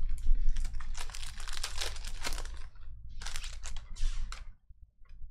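A foil trading-card pack being torn open, its wrapper crinkling in rapid crackles, with a second burst of crinkling and card handling before it quiets about four and a half seconds in.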